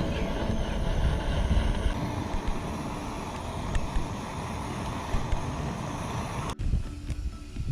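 Strong wind buffeting the microphone, a rumbling rush that drops away abruptly at a cut near the end.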